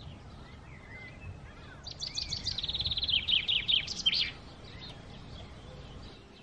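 A songbird singing one loud, rapid trill lasting about two seconds near the middle, with fainter bird chirps and short gliding calls around it over a low, steady background rumble.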